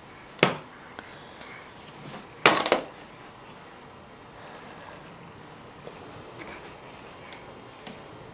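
A small boxed tape cassette knocked on a wooden table, one sharp knock about half a second in, then a short clatter of several quick knocks about two seconds later as it is dropped.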